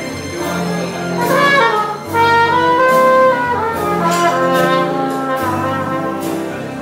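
Jazz trumpet playing a melody line, with a quick falling run about a second in and then held notes, over a piano accompaniment.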